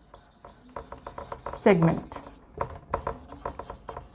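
Marker pen writing on a whiteboard: a quick run of short strokes as letters are written, with one spoken word about halfway through.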